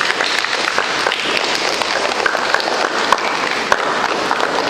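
Room full of schoolchildren applauding, many hands clapping at once, stopping about a second after this stretch ends.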